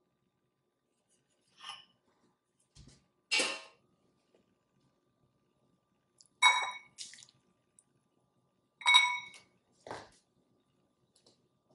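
A handful of separate clinks and knocks of kitchenware, the two loudest ringing briefly like a glass bowl being struck, with a duller knock a little before them.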